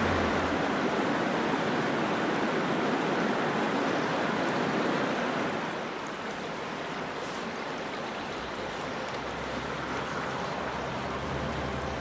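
Rushing stream water, a steady wash of noise that drops a little in level about halfway through.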